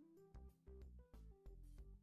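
Faint background music with a steady beat: a pulsing bass under sharp percussive hits and pitched notes.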